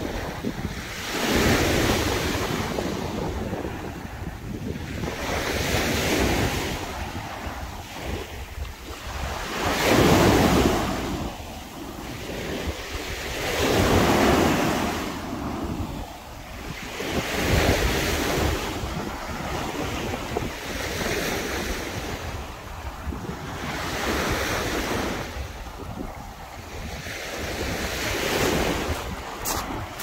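Baltic Sea waves breaking on the beach, each surge swelling and fading about every four seconds, with wind rumbling on the microphone throughout.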